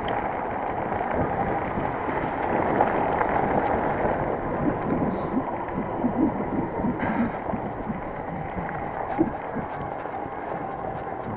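Wind buffeting the microphone over steady rolling tyre noise as a mountain bike rides along a wet dirt trail, with small irregular knocks from the bumpy ground.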